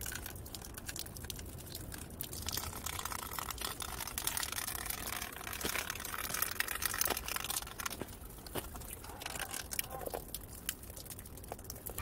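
Axial RR10 Bomber RC rock racer's tyres running through wet mud and puddles: splashing water and crackling grit, with many small scattered clicks.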